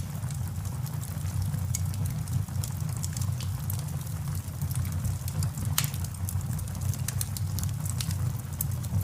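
Wood fire crackling in a fireplace: many small irregular pops over a steady low rumble, with one sharper pop about six seconds in.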